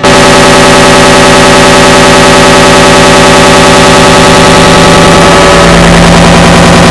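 An error sound effect stacked on itself in an enormous number of layers, merging into a loud, clipped, distorted wall of sound. The texture shifts about five and a half seconds in.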